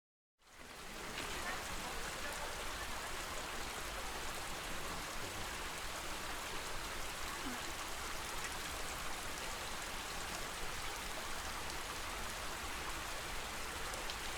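Steady lake water ambience, an even rush like a trickle or light rain, fading in after a brief silent gap at the very start.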